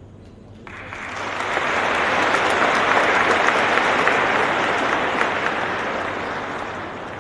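Audience applauding: the clapping starts suddenly just under a second in, swells to its peak, then gradually fades.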